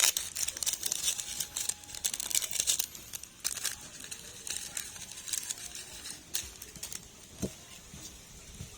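Irregular crinkling and rustling, as of something being handled, busiest in the first three and a half seconds and thinning out after, with a couple of soft knocks near the end.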